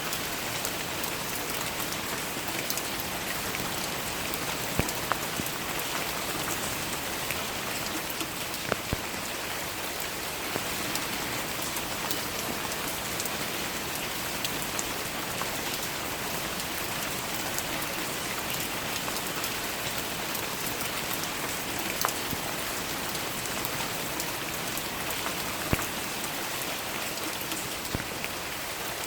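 Steady rain falling on surfaces, an even hiss with a few sharper single drop hits scattered through.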